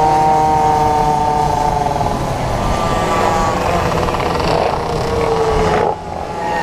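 Minimoto's small two-stroke engine heard onboard, whining at high revs with its pitch sagging slowly, then dropping sharply about six seconds in as the revs come down.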